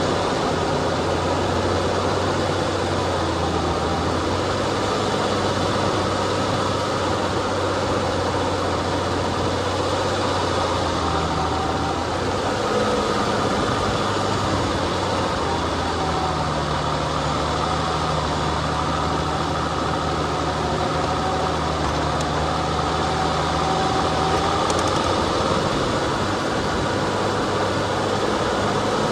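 Off-road vehicle's engine running steadily at low speed while crawling up a dirt trail, its pitch shifting up and down a few times.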